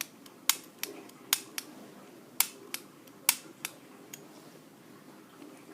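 Daisy Model 200 CO2 BB pistol being dry-fired, with no CO2 cylinder installed: sharp trigger-mechanism clicks. There are four pulls in about three seconds, each loud click followed by a lighter click as the trigger resets.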